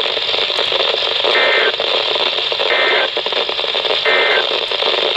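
Weather radio receiver playing a steady static hiss, cut by three short, buzzy two-tone data bursts about 1.3 seconds apart: the EAS end-of-message code that closes the warning broadcast.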